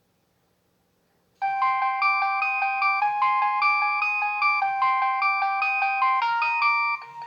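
Nokia 6100 mobile phone playing one of its built-in ringtones. After about a second and a half of silence, a bright electronic melody starts: a fast run of notes with several tones sounding together.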